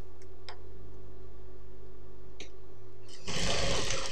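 Industrial single-needle sewing machine: its motor hums steadily, with a few light clicks of fabric handling. A little over three seconds in, it runs in a short burst of stitching lasting under a second, the start of a seam joining the trouser pieces.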